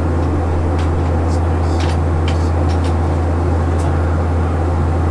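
Steady cabin noise inside a Boeing 737-800 in flight: a strong low drone from the CFM56 engines and rushing airflow, with a few faint ticks.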